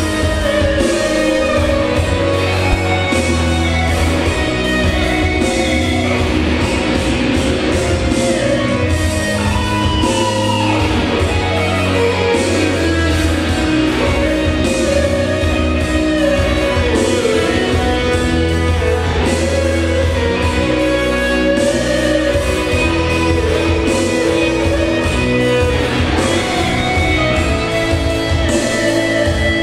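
Male vocal trio singing in harmony through microphones over amplified backing music with a steady bass line.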